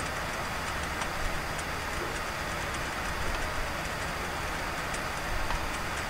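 Steady background hiss with a low hum from a home recording setup, with faint light ticks scattered through.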